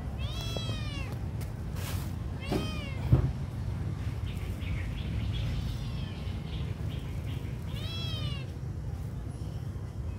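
A hungry kitten crying, with three clear meows that each rise and fall in pitch and fainter mews between them. There is a short knock after the second meow.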